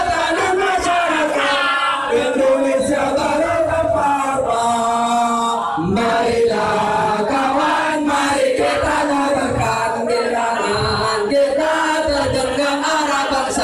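A large crowd of demonstrators singing a protest song together in unison, loud and without a break.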